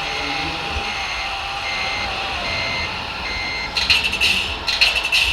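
Reversing beeper of a radio-controlled model construction vehicle, short beeps at one pitch about once a second over the hum of its electric drive. Near the end the beeping stops and loud, harsh bursts of noise take over.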